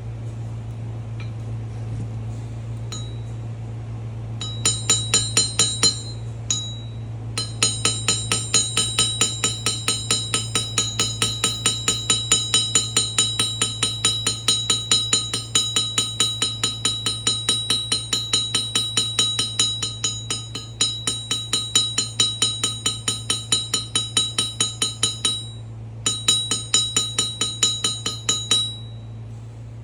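A small hard object, glass or metal, struck rapidly about four times a second, each strike ringing at the same pitch, over a steady low hum. The striking starts a few seconds in, pauses briefly twice and stops near the end.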